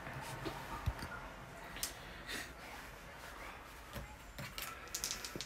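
Scattered light clicks and taps of plastic wargaming miniatures being handled and set down on a tabletop board, with a cluster of them near the end.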